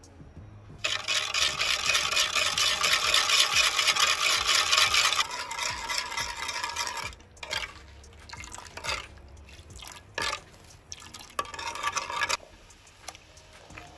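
Liquid splashing in a clay pot, loud and steady for about four seconds and then tailing off, followed by a wooden-handled ladle stirring the vinegar-and-sugar liquid with scattered knocks against the pot.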